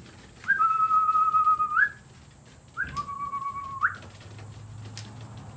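A person whistling two long notes. Each starts with a short rise, is held steady and ends with a quick upward flick, and the second is a little lower and shorter than the first.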